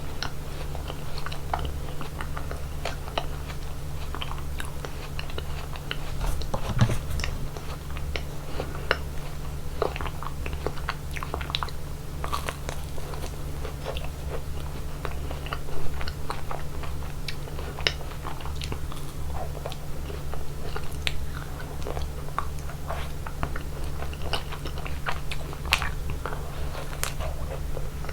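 Close-miked biting and chewing of chocolate ice cream, with many sharp, irregular crunches and mouth clicks over a steady low hum.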